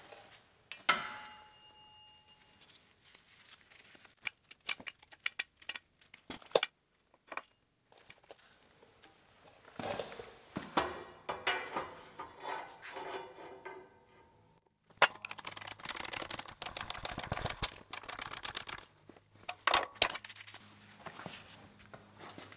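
Steel clinking and clanking: a metal part rings briefly about a second in, then come scattered knocks and stretches of dense clatter as steel flat bar is handled and bent in a press brake. A steady low hum runs under the second half.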